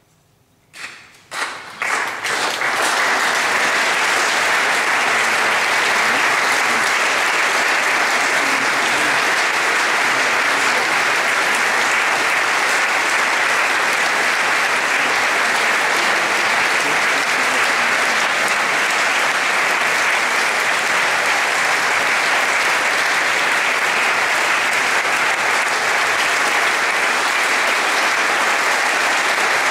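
Audience applauding: a few first claps about a second in, then dense, steady applause.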